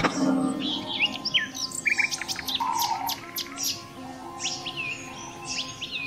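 Several birds calling at once: sharp high chirps, short slurred whistles and a brief fast trill, overlapping throughout, over a faint steady low tone.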